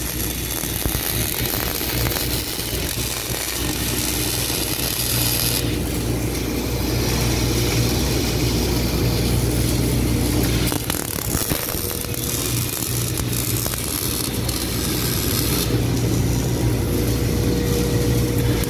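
MIG welding: the arc hisses and crackles in runs that stop and restart, over a steady low hum from the machinery.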